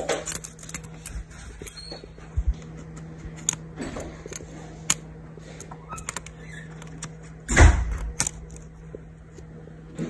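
Small clicks and taps of hands working inside an opened laptop: a connector lock flipped up and the click-button board's ribbon cable and plastic board pulled free. A louder knock comes about seven and a half seconds in, over a steady low hum.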